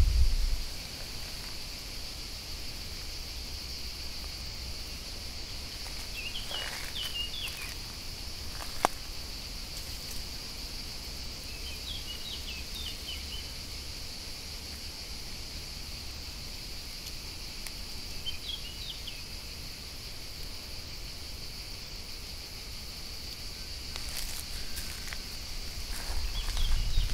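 Steady high-pitched insect chorus, with short clusters of bird chirps about every six seconds. Near the end a low rustling rumble of movement rises.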